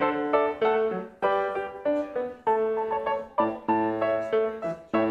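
Piano playing a slow, gentle tune in chords, each note struck and left to ring and fade.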